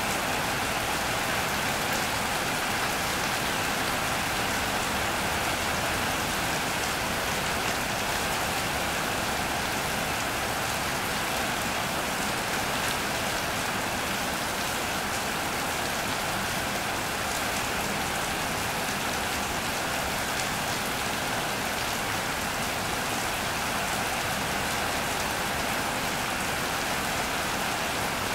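Steady rain falling on an iron roof and wet paving, an even patter that holds at the same strength throughout.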